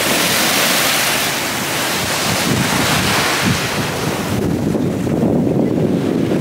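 Ocean surf washing in over sand in shallow water, with wind buffeting the microphone. About four seconds in the hissing wash drops away, leaving mostly wind rumble and surf.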